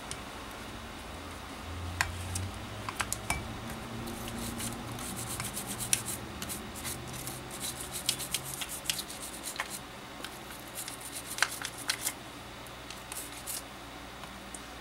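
A toothbrush scrubbing the alcohol-wetted trigger switch and control board of a Milwaukee M12 drill, with scattered light clicks and knocks of the plastic housing being handled. The switch is being cleaned because dirt makes it stick.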